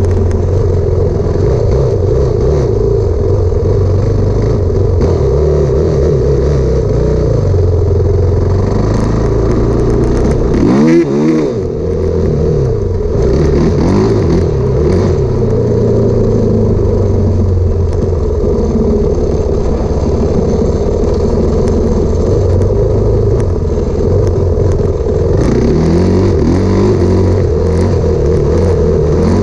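Enduro motorcycle engine running under load as the bike is ridden, holding a fairly steady note. About eleven seconds in, the engine revs up and drops back quickly before settling again.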